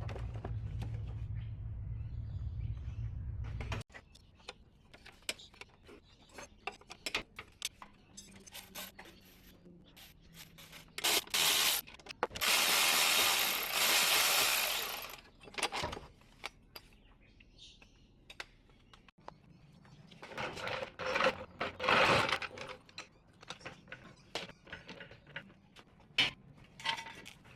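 A steady low hum that cuts off about four seconds in, then scattered clinks and knocks of tools on metal, with a power tool running twice: once for about four seconds and later for about two seconds.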